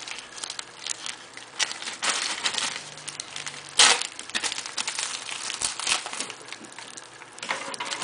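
Crinkling and rustling of a small mailing envelope being handled and opened, with a sharper, louder crackle about four seconds in.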